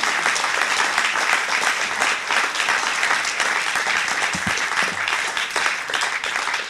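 Audience applauding, a dense steady clapping that starts to die away near the end.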